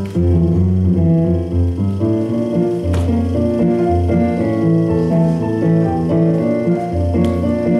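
Instrumental piano music playing as a performance accompaniment, with one sharp click about three seconds in.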